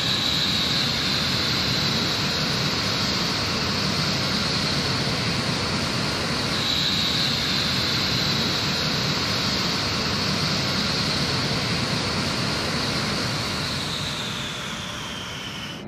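B-1B Lancer's four General Electric F101 turbofan engines running at taxi power: a steady jet roar with a high whine. Near the end the whine falls in pitch and the sound grows quieter.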